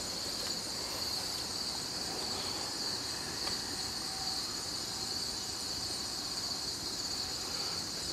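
Crickets chirping in a steady high trill, over a low, even hiss.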